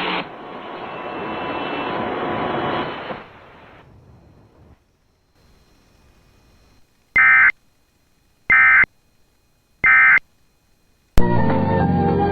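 Weather radio receiver hiss fading out after the broadcast voice stops, then a pause and three short identical bursts of digital data tones: the EAS/SAME End of Message signal that closes a weather alert. Music starts suddenly near the end.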